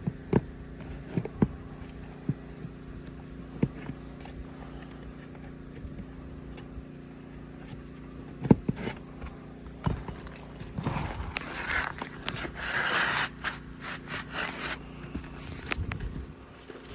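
Scraping, rubbing and occasional sharp knocks as asphalt shingles are worked loose and their nails pried out by hand. The knocks are scattered through the first half, and a longer bout of scraping comes a little past the middle, over a faint steady hum.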